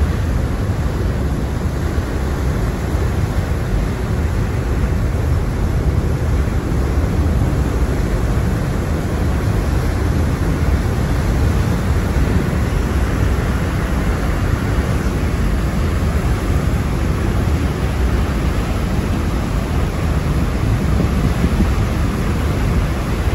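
Steady rushing and low rumbling of a large ferry's churning wake foaming along its hull, mixed with wind on the microphone.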